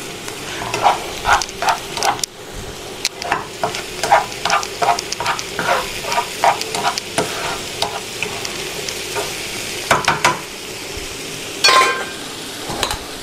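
Spoon stirring a thick buckwheat cutlet mixture in quick repeated strokes, about three a second, over the steady sizzle of mushrooms frying in a covered pan. A few sharp knocks and a ringing clink come near the end.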